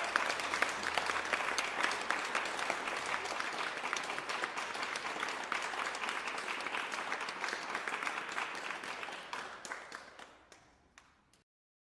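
A crowd applauding with dense clapping that thins out near the end to a few scattered claps, then stops.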